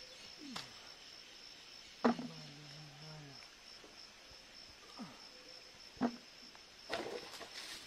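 Steady high-pitched insect chorus, crickets or cicadas. A few sharp clicks and knocks are scattered over it, with a short low hum about two seconds in.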